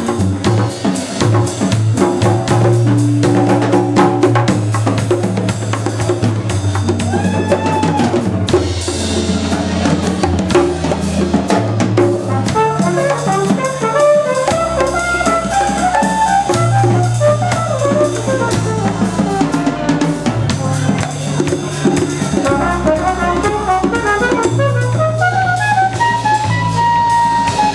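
Live samba-jazz band: drum kit and a bass line keep a steady groove with guitar, and from about twelve seconds in a soprano saxophone plays a solo of fast melodic runs over it.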